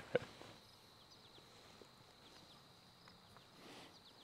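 Faint outdoor ambience by a river: a steady, high-pitched insect trill, with a short click just after the start and a few faint ticks.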